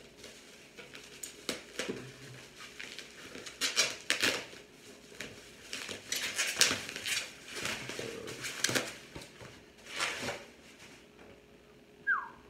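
Plastic packaging wrap rustling and crinkling in irregular bursts as a package is unwrapped by hand, with a short falling squeak near the end.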